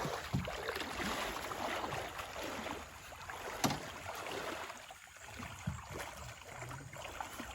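Water sloshing and splashing around a small boat crossing floodwater, with a single sharp knock a little over three and a half seconds in; the water sound eases off about five seconds in.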